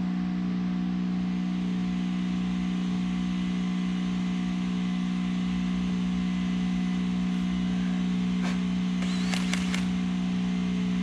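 Air compressor running with a steady hum, with a few light clicks near the end.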